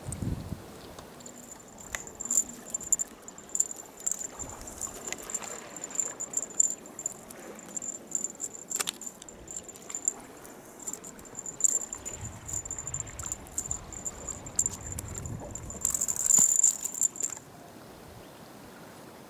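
Small metallic jingling, shaken in quick pulsing bouts with many light clicks, growing faster and louder near the end and then stopping suddenly.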